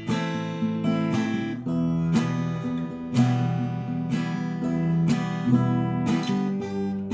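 Acoustic guitar played fingerstyle in the percussive style, with sharp hits on the strings and body between ringing chords and bass notes.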